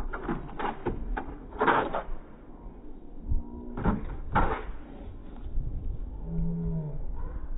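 A dog's paws knocking and scrabbling on an agility A-frame ramp as it runs up, over and down, a series of sharp knocks in the first two seconds and another pair at about four seconds, over a steady low wind rumble on the microphone.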